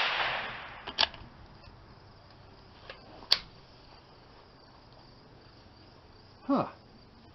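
Faint clicks and knocks of a scoped bolt-action .22 rifle being handled on a sandbag bench rest, the sharpest about three seconds in, over a faint steady background. It opens on the fading echo of a loud bang.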